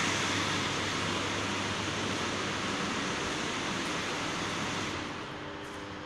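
Steady rushing noise that drops quieter about five seconds in.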